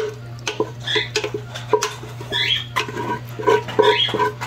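Thick, creamy chicken and vegetable mixture being scraped out of a stainless steel saucepan into a stainless roasting pan: wet plops and squelches with irregular clicks of metal on metal.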